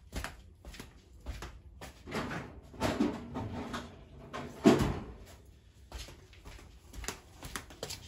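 Intermittent knocks and clatter of brake parts and tools being handled, with one louder knock about four and a half seconds in.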